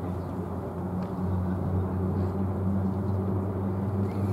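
Steady outdoor background: a constant low hum holding two low pitches over a faint rumble, with no distinct event.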